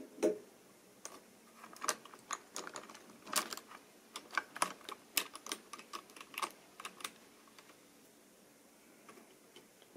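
Fingers handling a model Class 86 electric locomotive on the track: a run of irregular small plastic and metal clicks and taps, stopping about three-quarters of the way through.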